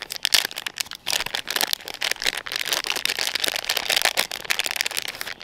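Foil packaging bag crinkling and crackling in the hands as it is unwrapped to get an LED headlight bulb out. It is an irregular, dense crackle that stops near the end.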